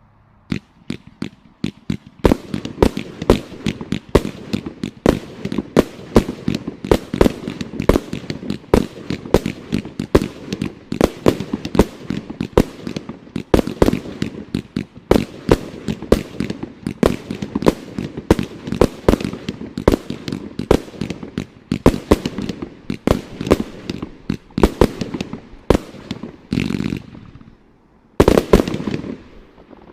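81-shot Z-shaped fireworks cake (brocade crown with colour falling leaves) firing: a fast string of sharp launch thumps and bursts, about three a second, starting half a second in. It ends with two longer, heavier bursts near the end.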